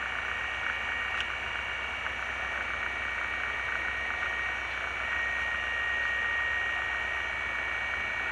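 Diamond DA20's piston engine and propeller running at low taxi power, a steady drone heard inside the cockpit, with a steady high whine running through it.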